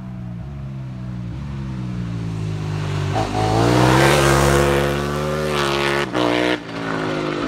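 Quad built around a KTM 1290 Super Duke's V-twin engine approaching and passing under power. The engine note grows louder to a peak about four seconds in, its pitch sinking and then climbing as it accelerates. The sound breaks off about six seconds in, and a quieter engine note follows.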